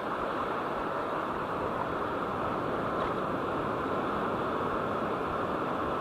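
Steady roar of surf breaking on the beach, with a low rumble of wind on the microphone.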